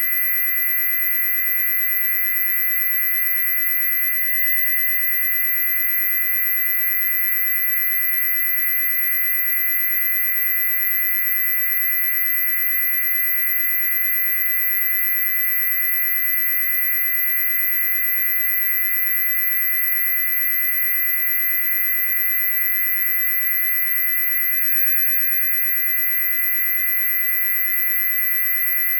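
Loud electronic high-pitched noise: a piercing, very high steady tone layered over a cluster of shrill lower tones, held unbroken and unchanging.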